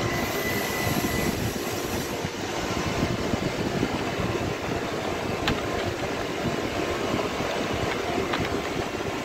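Steady background noise of machinery running on a machine-shop floor, with two faint clicks, one about halfway through and one near the end.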